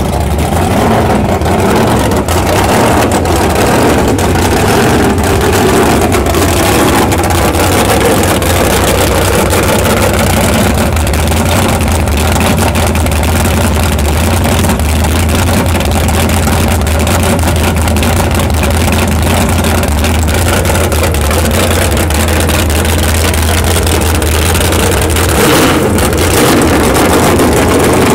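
Supercharged 541-cubic-inch Hemi V8 running on an engine stand, loud and steady. Its note changes briefly about 25 seconds in.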